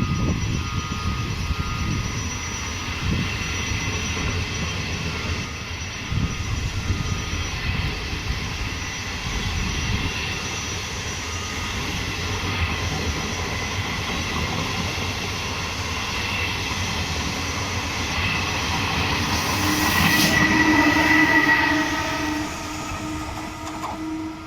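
Train running on the rails: a steady rumble with thin, high metallic squealing tones from the wheels above it. About twenty seconds in it grows louder, with a sharp crack and a steady lower tone held to the end.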